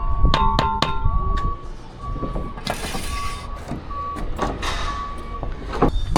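A site vehicle's reversing alarm beeping about twice a second on one steady pitch, after a quicker run of two-pitched beeps in the first second. Short scraping noises come in between the beeps.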